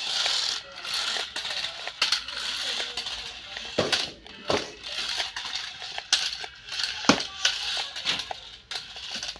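Mirana Warrior RC stunt car running at full speed on a tiled floor: its small electric motors whine in surges as it accelerates and turns, and its rubber wheels and plastic body clatter. Several sharp knocks come as it tumbles and flips over.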